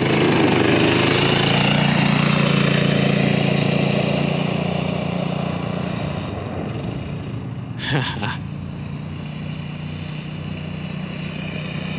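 Single-cylinder Tecumseh engine of a Yerf Dog off-road go-kart running steadily at speed as the kart pulls away on gravel. The engine note fades as the kart drives off, then grows a little again near the end. A brief loud sound comes about eight seconds in.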